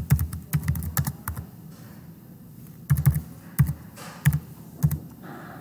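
Computer keyboard typing: a quick run of keystrokes, a pause of about a second and a half, then a handful of slower, separate keystrokes.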